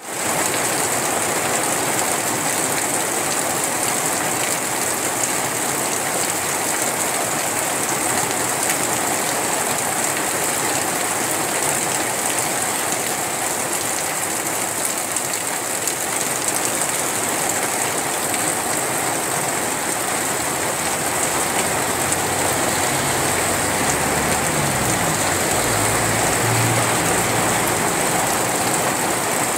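Heavy rain falling steadily, a dense, even hiss. A low rumble joins in about three quarters of the way through.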